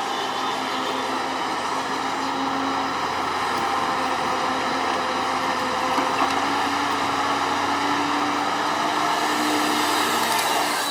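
Excavator diesel engine running steadily, a constant mechanical drone whose pitch lifts slightly after the middle.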